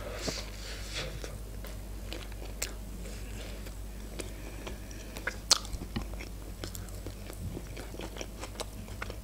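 A bite into a McChicken burger, then chewing with scattered soft crunches.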